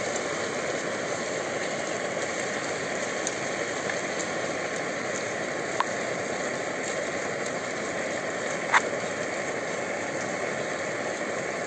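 Optimus Polaris camping-stove burner running with a steady rushing hiss as bacon and cheese fry in the pot. A spoon clicks against the pot twice while stirring, the second click sharper, about six and nine seconds in.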